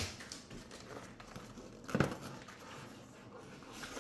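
Cardboard packaging being opened and handled, soft rustling with one sharper knock about halfway through.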